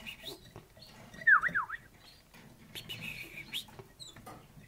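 Domestic canaries calling: two or three quick, loud down-slurred chirps about a second in, then a short buzzy trill near three seconds, with a few light clicks.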